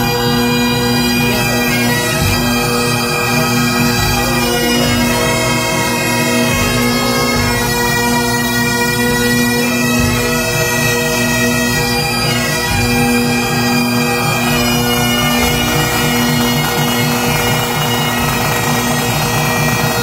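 A pipe band's Great Highland bagpipes playing a tune together, the chanters carrying the melody over a steady drone.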